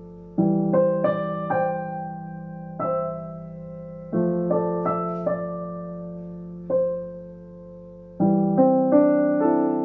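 Slow, gentle solo piano improvisation: clusters of notes and chords struck every few seconds, each left to ring and fade.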